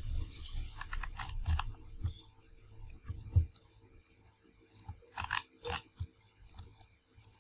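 Computer mouse and desk handling noises close to the microphone: scattered soft clicks and taps, with low thumps during the first three seconds or so.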